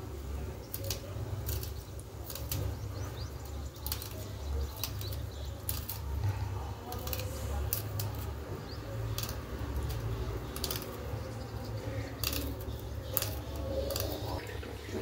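Green chillies being finely cut: sharp, irregular cutting clicks about once or twice a second, over a steady low hum.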